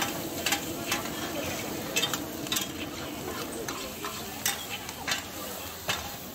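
Two metal spatulas scraping and clinking against a large wok in quick, irregular strokes while oyster omelette fries with a steady sizzle underneath.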